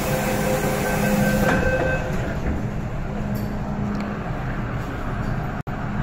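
MTR Island Line M-train moving off from a station platform, heard from inside the car. In the first second or two there is a repeating beep and a hiss. Then the train's running rumble and motor hum carry on as it gathers speed. The sound cuts out for an instant near the end.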